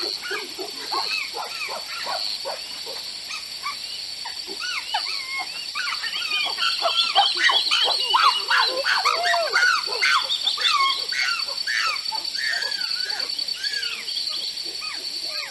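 Many animals calling at once in short, overlapping yelping and chirping calls that rise and fall in pitch, busiest in the middle, over a steady high-pitched tone.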